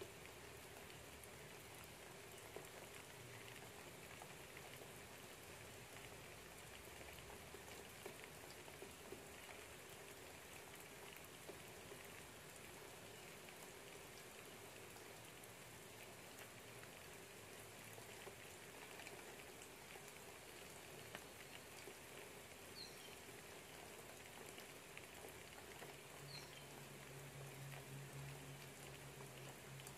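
Faint, steady rain outside a window: a soft hiss with scattered light patter of drops. A low steady hum joins near the end.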